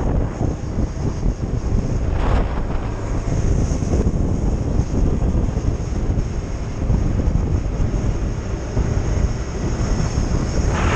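Piaggio Beverly 200 scooter under way at cruising speed: the steady drone of its single-cylinder four-stroke engine under heavy wind rumble on the microphone.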